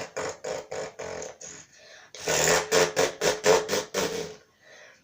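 A boy's mouth imitation of a 1960 truck engine: a rapid pulsing chug of about four or five beats a second that fades off, then a louder run of pulses starting about two seconds in.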